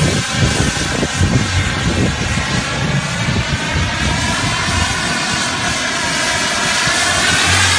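Jet engine of a low-flying jet aircraft climbing steeply overhead: loud and steady, with a rippling tone whose pitch bands drift upward near the end, and gusty low thumps in the first few seconds.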